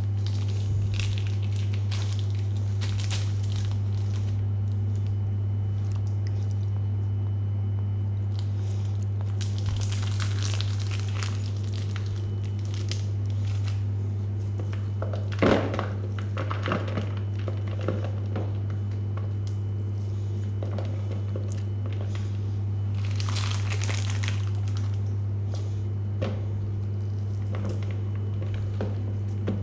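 Packaging crinkling and goods being handled, with scattered clicks and one sharper knock about halfway through, over a steady low hum.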